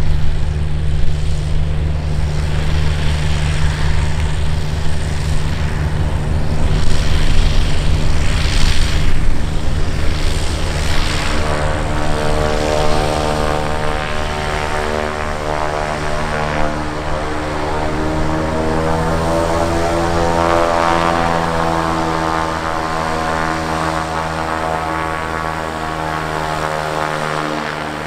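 Cirrus SR-series single-engine piston plane taxiing, its engine and propeller running at low power. A low steady drone becomes a buzzing propeller note with many overtones from about twelve seconds in, and the pitch shifts around twenty seconds as the plane turns toward the microphone.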